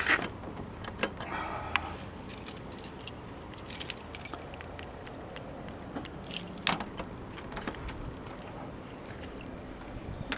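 Keys jangling, with scattered clicks and knocks from the rear hatch of a Porsche Cayenne being opened; one sharper knock comes about two-thirds of the way through.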